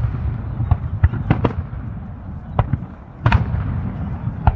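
Aerial firework shells bursting in an irregular string of sharp bangs, several in quick pairs, over a steady low rumble.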